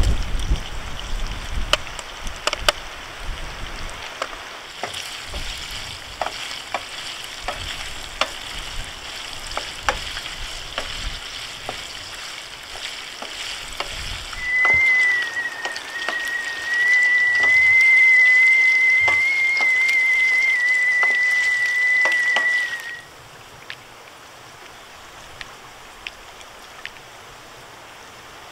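Food frying and sizzling, with scattered sharp crackles. A steady high whistle joins it for about eight seconds in the middle. Near the end it all stops abruptly, leaving a quieter steady hiss.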